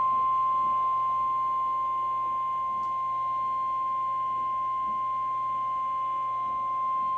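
NOAA Weather Radio warning alarm tone, the 1050 Hz alert signal: one steady, unbroken high beep held at a constant pitch. It is sent as the weekly test to switch weather radio receivers on automatically.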